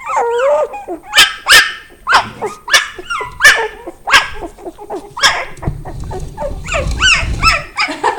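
Norwegian Lundehund puppies yapping: a string of short, high-pitched barks and yips, about one or two a second, with a low rumble underneath for a couple of seconds near the end.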